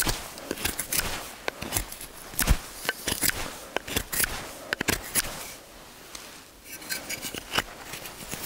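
Puukko knife carving dry spruce: irregular slicing and scraping strokes of the blade taking shavings off the wood, with a brief pause about six seconds in.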